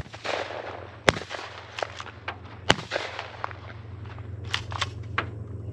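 A string of shotgun shots from several dove hunters: a sharp shot at the start, loud ones about a second in and near the three-second mark, then fainter, more distant shots.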